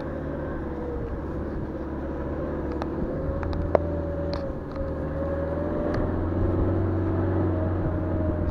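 Car engine running as the car drives slowly, its drone wavering a little in pitch and growing louder in the second half, with a few sharp clicks and one louder knock about four seconds in.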